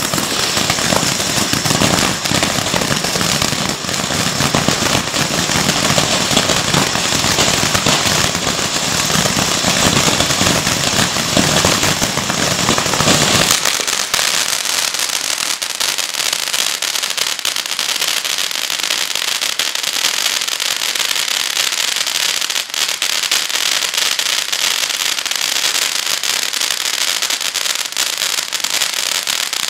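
Multi-effect ground fountain firework spraying sparks: a continuous loud hiss packed with crackling. About halfway through the deeper rushing drops away and a thinner, higher hiss with crackles carries on as the fountain moves into its next step.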